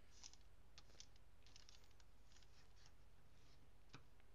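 Faint crinkling and rustling of origami paper being pressed flat and creased by hand in a squash fold, with a sharper tick just before the end.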